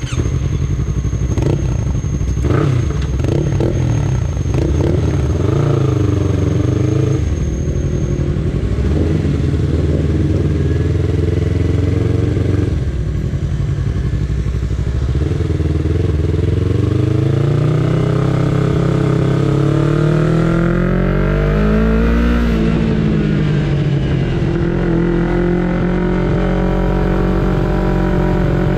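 Yamaha sport motorcycle engine heard from the rider's seat, pulling away and accelerating at low town speeds. The revs climb and fall several times, with a long rising pull that drops sharply about 22 seconds in and then settles to a steadier note.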